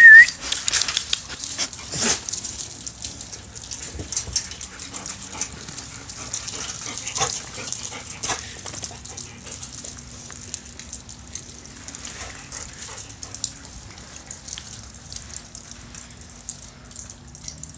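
Labrador puppies moving about on gravel and concrete around a chain-link kennel fence, giving scattered small clicks, scuffs and rattles.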